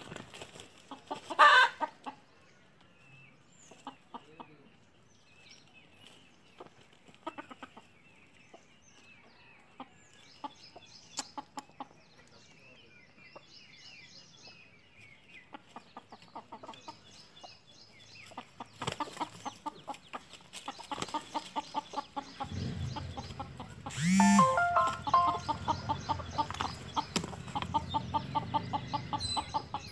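Desi (Indian native) hens clucking and squawking, with loud outbursts about a second and a half in and again near the end. A low steady hum runs under the last third.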